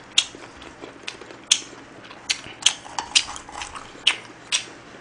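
Close-miked eating sounds: chewing with sharp, wet clicks and smacks, about seven in all, mixed with chopsticks clinking on a grill pan.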